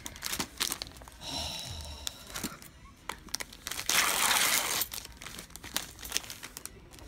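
Plastic and paper wrapping of a sterile stitch-removal kit crinkling as it is handled and opened, with scattered crackles and one louder tearing, peeling sound about four seconds in that lasts about a second.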